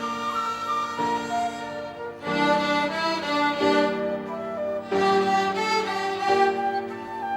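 Violin ensemble playing a song melody in several parts, sustained bowed notes changing about once a second.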